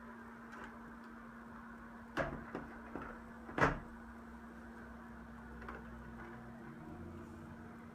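Knocks and clicks of hard objects being handled, four of them between about two and four seconds in, the last the loudest, over a steady low hum.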